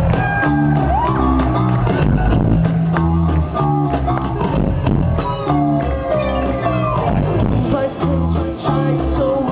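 Live band playing an upbeat song: a bass line stepping from note to note under guitar and sliding melodic notes, with no singing. The sound is dull and lacks treble, as picked up by a compact camera's microphone in the audience.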